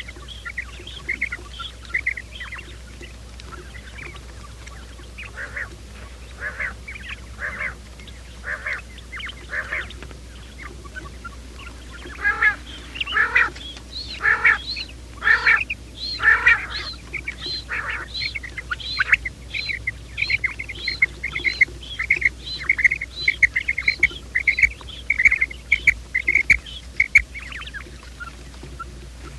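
Quail calling: short high notes repeated over and over, sparse at first, louder for a few seconds near the middle, then a fast even series of two or three calls a second. A steady low hum runs underneath.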